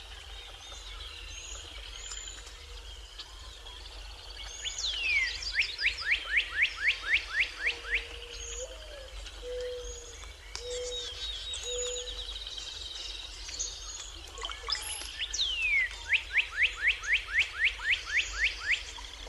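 Birdsong in a forest at dawn: a bird sings twice a fast series of about ten quick down-slurred notes. Between the two phrases come a few low, steady whistled notes and scattered faint chirps, over a steady low rumble.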